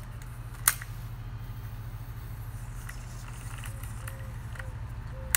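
Sharp clicks of a baitcasting reel, one about two-thirds of a second in and another at the end, over a steady low hum.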